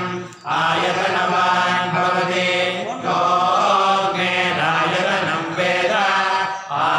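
Male priests chanting Vedic mantras in Sanskrit, reading from their texts in a steady recitation, with short breaks for breath about half a second in and near the end.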